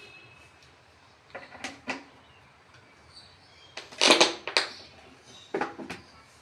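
A few sharp knocks and clatters of hard objects being handled, in small groups, the loudest cluster about four seconds in.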